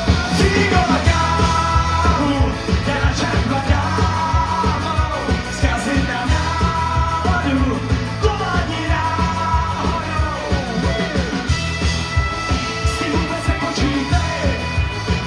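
Ska band playing a song, with a steady, driving beat and a bass line under a melody line that slides up and down.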